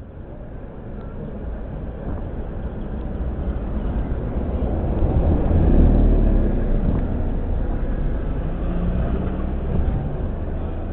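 A car passing close by, its engine and tyre noise growing louder to a peak about six seconds in, then slowly fading.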